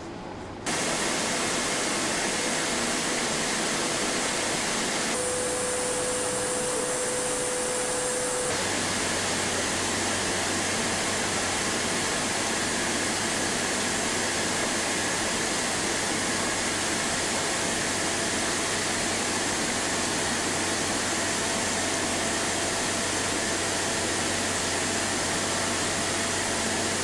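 Steady, loud rushing machine noise from a car-body road simulation test rig, with a faint steady tone. The sound changes character a few seconds in, and a low steady hum joins about eight and a half seconds in.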